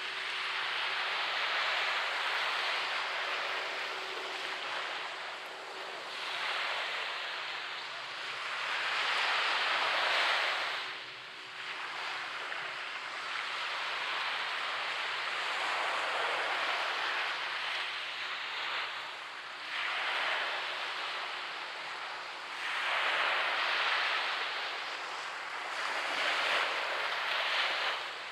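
Small waves breaking and washing up a sandy beach, the surf's hiss swelling and falling every few seconds, with one abrupt drop-off about ten seconds in.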